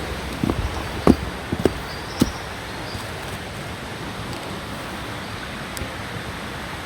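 Steady rushing of a rainforest creek and waterfall, with a handful of short, sharp knocks in the first two seconds or so.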